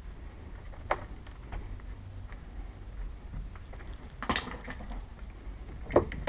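A few sharp, separate clicks and knocks of a wood chisel working the latch recess in a soft pine door edge, with a louder scraping clatter about four seconds in.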